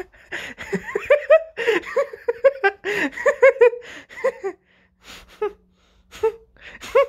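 High-pitched laughter in quick ha-ha bursts, breaking off briefly around the middle before starting up again.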